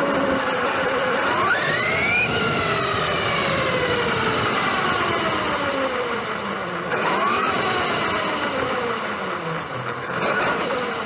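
Electric RC monster truck's motor whining as it speeds up and slows down. The whine rises sharply about two seconds in and falls away slowly, rises and falls again in the middle, and climbs once more near the end.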